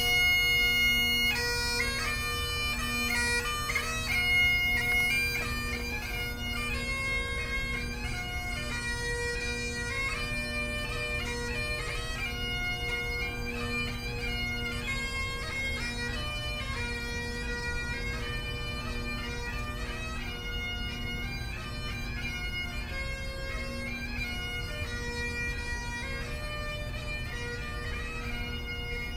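Bagpipes playing a melody over steady, unbroken drones.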